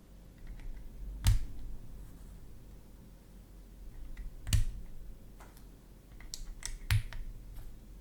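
Typing on a Choice65 gasket-mount mechanical keyboard with pre-lubed Z1 linear switches, a polycarbonate plate and MW Coloradas keycaps: scattered keystrokes, with three much louder strikes about a second in, midway and near the end.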